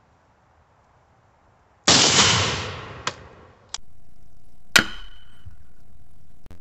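A single 7.62x39 gunshot from an AK-pattern pistol about two seconds in, its report echoing away over about a second. Near five seconds in comes a sharp metallic clang with a short high ring as the bullet strikes the 3/8" hot-rolled steel plate and knocks it down.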